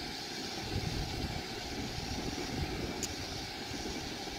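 Wind buffeting the microphone: a steady, flickering low rumble, with one short tick about three seconds in.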